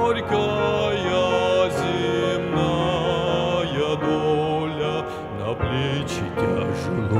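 A slow Russian hymn: a man's solo voice singing over sustained instrumental accompaniment.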